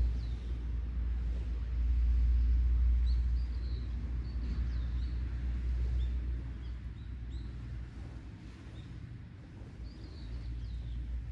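Small birds chirping now and then in short high calls, over a low rumble that eases off toward the end.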